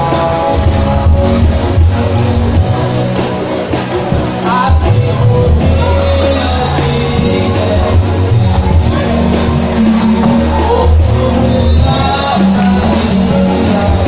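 Church choir singing, with a lead voice through a microphone, over amplified accompaniment that has a deep stepping bass line and a steady beat.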